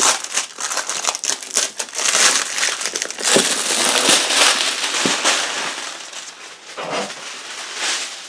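Plastic wrapping crinkling and crackling as it is pulled and crumpled off a board game box. The crackling is densest in the middle and thins out near the end.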